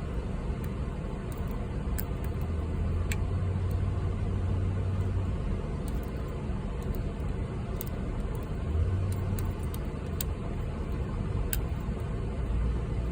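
Metal lock picks working the pins of a 38mm Ace padlock, giving a handful of faint, sharp ticks over a steady low rumble.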